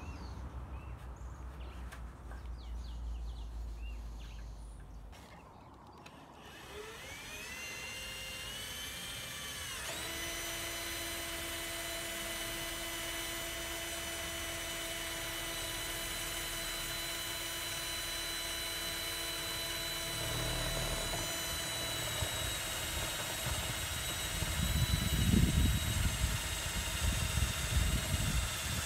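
Cordless drill running: its motor whine rises for a few seconds, then holds steady. Near the end it turns louder and rougher.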